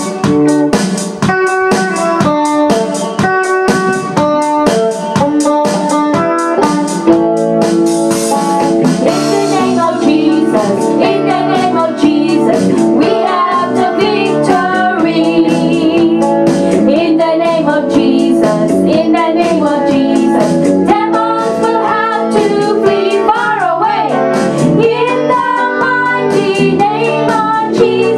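Praise and worship team of two women and a girl singing a victory song into microphones over instrumental accompaniment with a steady beat. The accompaniment plays alone for the first several seconds before the voices come in.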